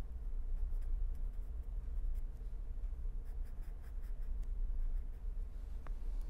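Marker pen writing and underlining on paper: faint scratchy strokes of the tip, over a steady low hum.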